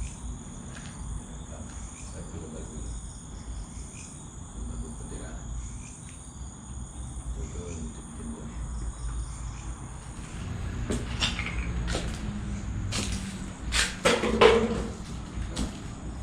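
Crickets chirring steadily in the night, joined in the last five seconds by a string of knocks and scrapes, the loudest about fourteen seconds in.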